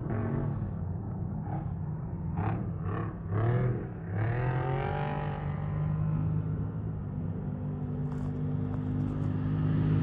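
Off-road race vehicle's engine revving in several quick rising bursts, then running more steadily and growing louder near the end as it approaches.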